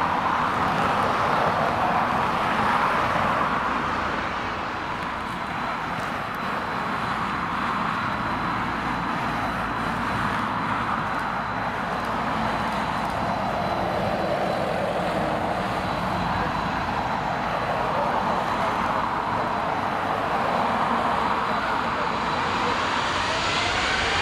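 Jet engines of a Boeing 777 airliner running on the runway: a steady broad rumble with a thin high whine over it. Near the end the whine rises in pitch as the engines spool up.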